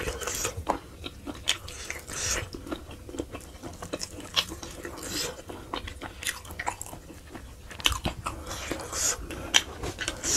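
Eating sounds: meat being pulled off a sheep's head by hand and chewed, a dense, irregular string of short sharp clicks and crunches.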